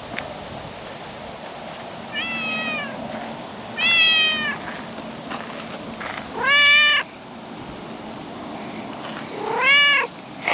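Calico cat meowing four times, each meow under a second long and a second or more apart, the last two the loudest.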